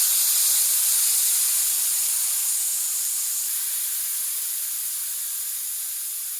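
Air hissing out of a bicycle inner tube's Presta valve held open with a finger, a steady high hiss that fades slowly as the tube deflates.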